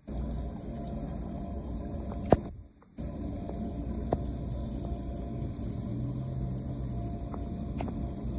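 Muddy floodwater rushing and swirling into a curbside storm-drain inlet as a gloved hand clears trash from its opening, a steady low rushing. There is a sharp click a little over two seconds in, then the sound drops out for a moment before it resumes, with a few fainter clicks later.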